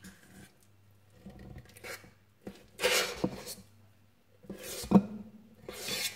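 A utensil scooping muffin batter out of a stainless steel mixing bowl: three scraping strokes against the bowl, with a sharp knock on the metal about five seconds in.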